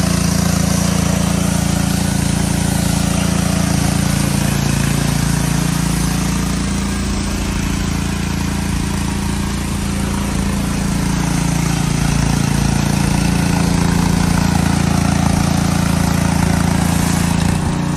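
Gas-engine pressure washer running steadily, its small engine droning under the hiss of the high-pressure water jet sprayed against brick.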